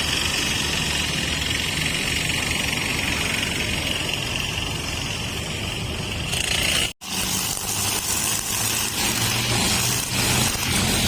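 Two-stroke brush cutter running on nylon trimmer line, a steady engine drone. The sound cuts out for an instant about seven seconds in, then the engine carries on with a steadier low hum.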